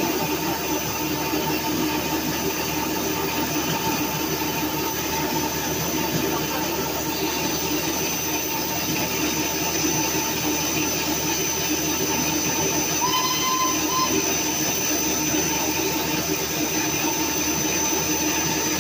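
Standing steam locomotive 34053 Sir Keith Park, a rebuilt Bulleid Battle of Britain class pacific, hissing loudly and steadily with escaping steam. A short high tone sounds for about a second about two-thirds of the way through.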